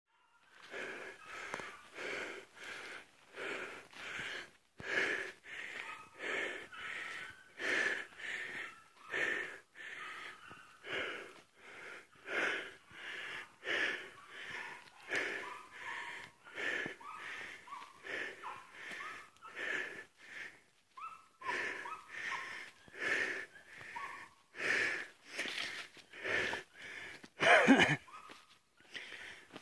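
Heavy, rhythmic breathing close to the microphone, with a wheezy whistle on many of the breaths, about one every two-thirds of a second. A louder, sharper burst comes near the end.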